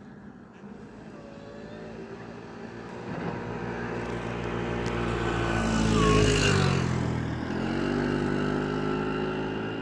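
A motor vehicle's engine approaching and passing close by. It grows louder, drops in pitch as it goes past about six seconds in, then fades away.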